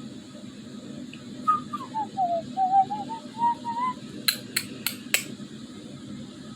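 Whistling snore: a sleeper's breath whistles in a wavering tone that falls, then climbs back up in short broken pieces, over a steady low hum. Four sharp clicks follow near the end, about a third of a second apart.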